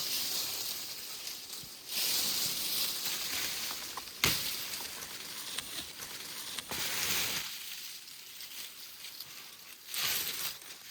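Dry twigs and leaf litter rustling and crackling in the forest as small sticks are gathered, in uneven swells, with one sharp crack about four seconds in.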